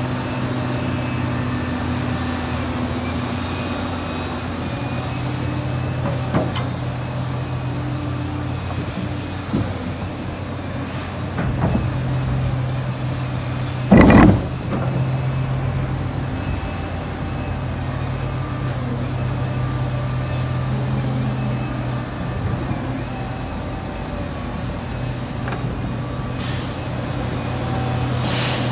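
Liebherr R 976 hydraulic excavator's diesel engine running steadily under load as it digs. About halfway through there is one loud clank, as the steel bucket strikes the ground. Just before the end comes a short hiss.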